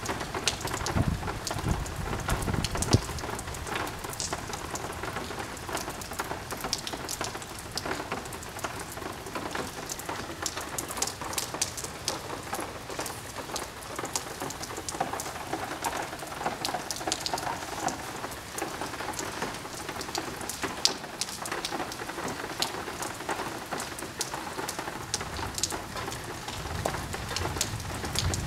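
Heavy rain pouring down, with many sharp drops striking close by, and a low rumble of thunder in the first few seconds.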